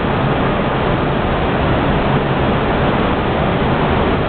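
Steady rushing noise in the cockpit of an Airbus A319 on approach to land, with no changes or distinct events.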